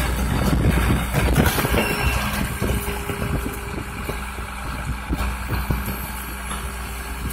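Rear-loader garbage truck running while a dumpster is tipped over its hopper. There is a clatter of knocks in the first few seconds as trash falls into the hopper, and a steady hum joins the engine about three seconds in.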